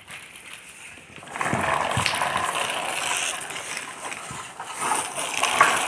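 Plastic toy trucks' wheels rolling and rattling over a rough concrete floor, starting about a second and a half in.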